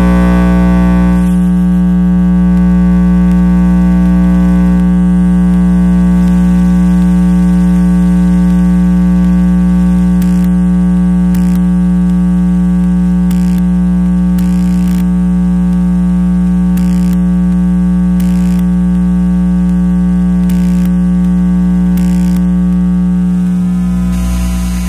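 Electromagnetic interference from an electronic device, picked up by an RFI probe: a loud, steady electrical buzz with many overtones over a deep hum. From about ten seconds in, short bursts of hiss cut in, in pairs, every few seconds. Near the end the buzz changes to a denser, grittier tone.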